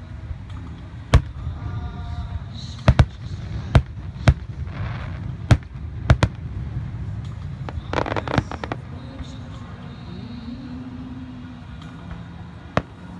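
Aerial fireworks shells bursting: a series of sharp bangs at uneven intervals, with a quick rattle of several bangs about eight seconds in and a single bang near the end.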